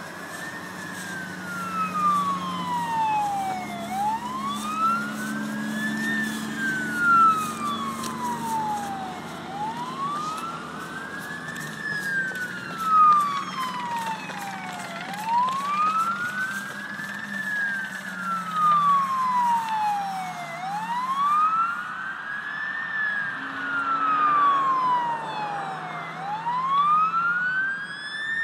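Fire engine siren sounding a slow wail, rising and falling about every five and a half seconds, about five times, over a low steady drone.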